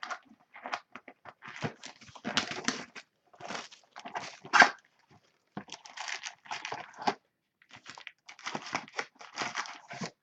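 Plastic wrap on a sealed box of trading cards crinkling and tearing as it is pulled open, in irregular bursts, with the loudest rip about four and a half seconds in.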